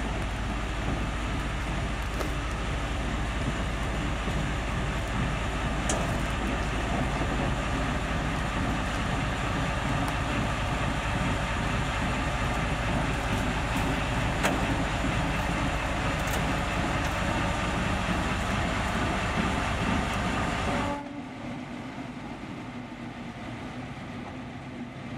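The V12 diesel engine of a TU2 narrow-gauge diesel locomotive running loud and steady as the locomotive draws slowly up close, with a few sharp clicks. About 21 seconds in the sound drops suddenly to the quieter running of the same engine, heard from further off.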